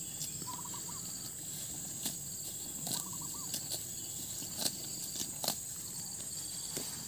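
Steady high drone of insects, with irregular sharp crisp rips and crunches of cattle tearing and chewing grass as they graze close by.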